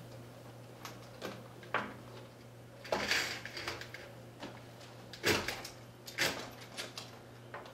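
Window blinds and a window being opened by hand: scattered clicks and knocks, a scraping rattle about three seconds in, then more knocks and rattles after five seconds.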